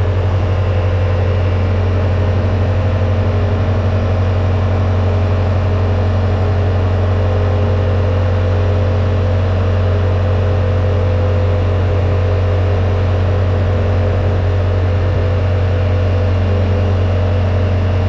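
Side-by-side UTV engine running at a steady speed, a loud, even drone with a strong low hum that barely changes.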